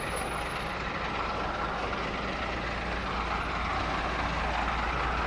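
Steady low rumble of a large vehicle engine running, with a noisy outdoor background.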